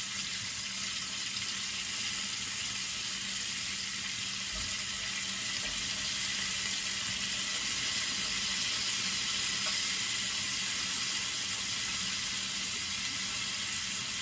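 Blue crab pieces sizzling steadily in garlic butter and onions in a stainless steel frying pan.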